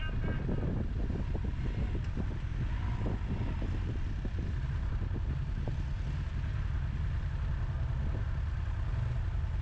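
Side-by-side UTV engine running, with a steady low rumble and a rougher, crackling texture in the first few seconds.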